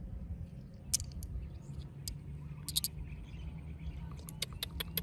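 Small polished stones clicking against each other in a hand: a few sharp clicks, one about a second in, a pair near three seconds and several more towards the end, over a low steady rumble.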